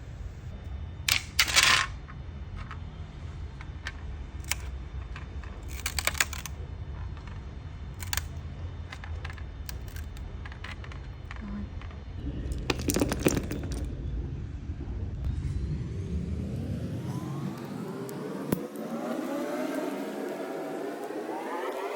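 3D printer running: a steady low hum broken by a few sharp clicks and clinks, then, from about three-quarters of the way in, its stepper motors whine in gliding tones that rise in pitch toward the end.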